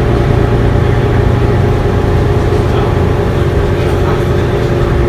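Mercedes-Benz Citaro city bus under way, heard from inside the passenger cabin: a steady low drone of the diesel engine and drivetrain with road noise, and a faint steady whine on top.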